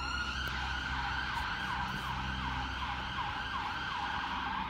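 Emergency vehicle siren: a tone that finishes rising in pitch, holds, then warbles with quick repeated dips in pitch, and cuts off suddenly near the end. A low steady hum runs underneath.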